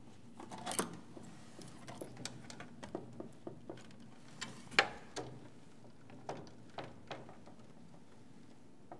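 Scattered light clicks and taps from a screwdriver and hands handling metal and plastic parts inside a laboratory autosampler's chassis during disassembly, with one sharper click a little before five seconds in.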